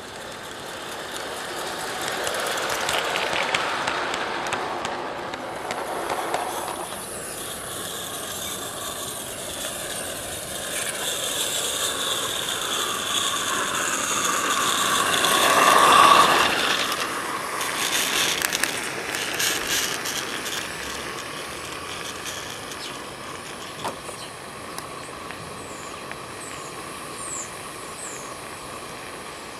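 G scale live-steam locomotives running on garden railway track: a rapid mechanical chuffing and rattling with steam hiss. It is loudest about halfway through, as a locomotive passes close by.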